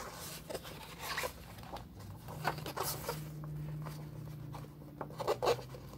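Paper rustling and brushing as the pages of a book are handled, in a string of short scraping strokes.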